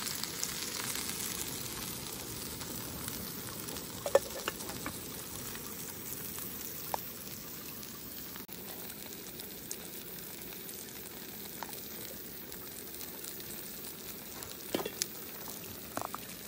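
Steady hiss of a portable gas-canister stove burning under a steel pot, heating water toward the boil. A few sharp clinks of metal cookware sound over it, the loudest about four seconds in and a couple more near the end.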